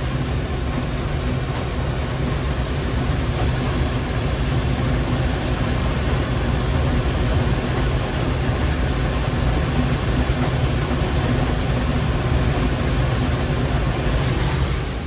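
Combine harvester running steadily while harvesting corn: a constant drone of engine and machinery.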